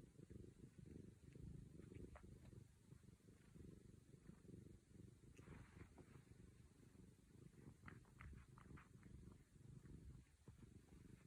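Domestic cat purring softly and steadily close to the microphone, with a few faint light clicks over it.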